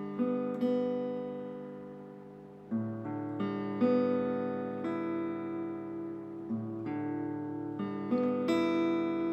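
Background music: acoustic guitar chords plucked and left to ring, a new chord every second or two.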